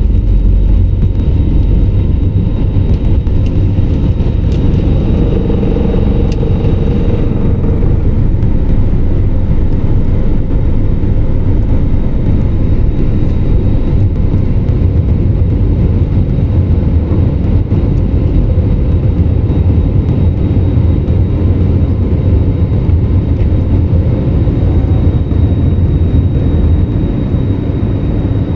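Airbus A321neo jet engines at takeoff thrust, heard from inside the cabin over the wing as the aircraft leaves the runway and climbs: a loud, steady rumble with a thin, high, steady whine over it. Some of the upper hiss eases about seven seconds in.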